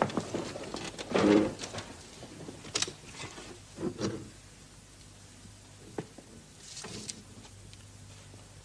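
Quiet room with a few scattered knocks, shuffles and movement noises, and a brief voice-like sound about a second in.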